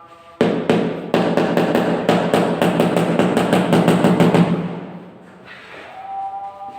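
Background music with a loud, fast drum passage that starts suddenly just after the start, hits about five or six times a second, and fades out about two-thirds of the way through.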